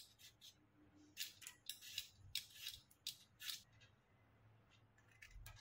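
Vegetable peeler scraping the skin off a raw green mango: a run of short, faint rasping strokes over the first three and a half seconds, then it stops.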